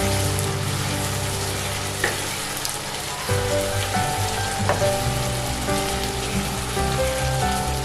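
Blended pepper, crayfish and locust beans sizzling in hot palm oil in a pot as they are stirred together, with a few light clicks. Soft background music with sustained notes plays underneath.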